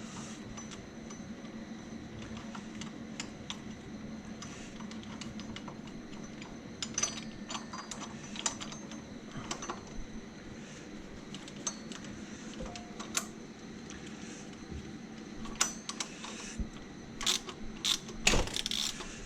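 Hand tools clicking and clinking on metal as a gear puller draws an Audi 2.6 V6 camshaft gear off its shaft. The knocks come irregularly and get louder and closer together near the end.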